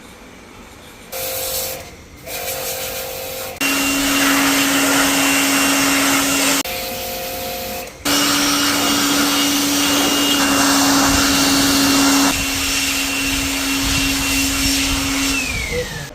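An electric machine running in on-and-off spells with a steady hum and a loud hiss, and a quieter, higher-pitched state in between. Near the end its pitch falls as it winds down.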